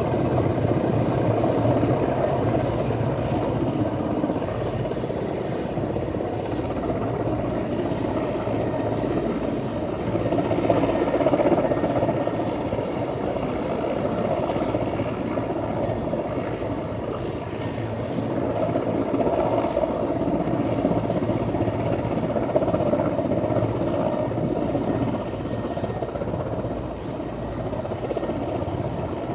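Helicopters running steadily, a continuous loud rotor and engine noise that swells and eases slightly without stopping.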